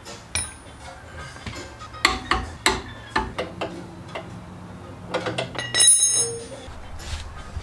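Hand tools knocking and clinking against metal brake parts at a car's wheel hub: a quick run of sharp knocks about two to three and a half seconds in, then a loud ringing metallic clink about six seconds in.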